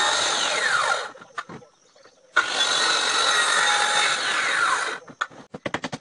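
A power tool working pallet wood in two runs, the first about a second long, the second about two and a half seconds, each stopping abruptly. A quick series of sharp knocks follows near the end.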